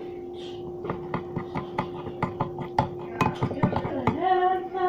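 Metal spoon clinking quickly and repeatedly against a bowl, about four or five knocks a second, as thick homemade icing is stirred, over a steady low hum.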